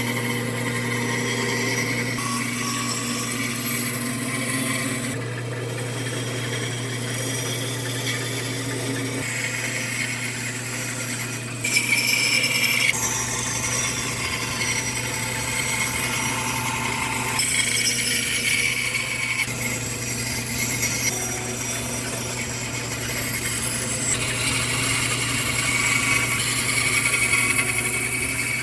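Bandsaw running and cutting wood: a steady motor hum under the sound of the blade working through the stock, which changes several times as the cut goes on.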